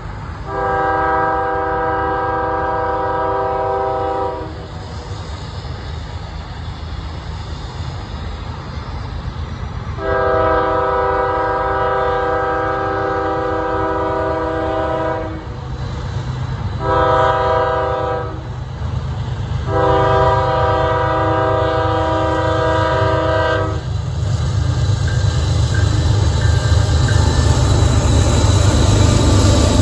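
Norfolk Southern diesel locomotive horn sounding the grade-crossing signal, long, long, short, long, over a low engine rumble from the approaching train. After the last blast the rumble swells as the lead locomotives pass close by, loudest near the end.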